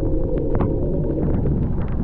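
Heavy wind buffeting the microphone during a ride through a snowstorm, a loud steady low rumble with scattered faint ticks.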